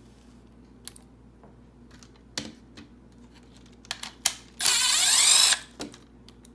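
A power drill runs for about a second, backing a screw out of the air scrubber cell's metal end plate, its pitch rising as it spins up. A few sharp clicks and taps of the metal cell and screws being handled come before and after.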